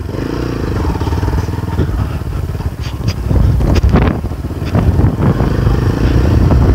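Motorcycle engine running while the bike is ridden over a rough off-road track, with a few sharp knocks around the middle. The engine gets louder from about halfway through.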